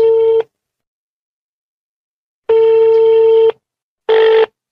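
Telephone ringback tone from a call that goes unanswered: a steady one-second tone ends just after the start, and another sounds about two and a half seconds in. Near the end it turns to short beeps of the same pitch in quicker succession.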